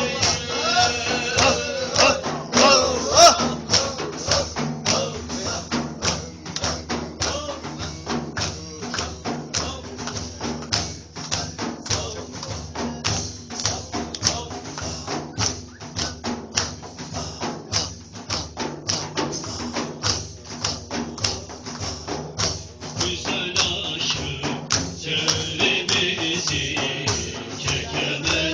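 Music of hand-beaten frame drums, like a tambourine, played in a steady rhythm. Voices sing over the drums at the start and again near the end.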